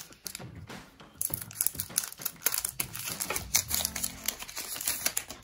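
Trading cards and their foil pack wrapper being handled, giving a run of short crinkling and rustling crackles.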